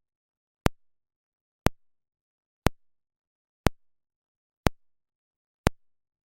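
Speaker polarity test signal: a sharp electronic click pulse repeating once a second, six times, with silence between pulses.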